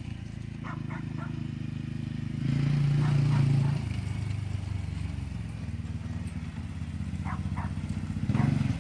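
Small youth four-wheeler (ATV) engine running as it is ridden around a grass field. It gets louder about two and a half seconds in, eases off about a second later, and swells again near the end as the quad comes up close.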